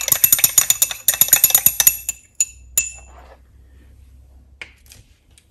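Glass stirring rod clinking rapidly against the inside of a small glass beaker as a watery serum is stirred, about eight to ten clinks a second. The stirring stops about two seconds in, followed by two ringing glass-on-glass clinks.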